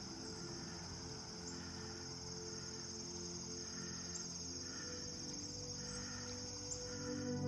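Steady high-pitched insect chorus, a continuous cricket-like trill, with soft sustained background music underneath.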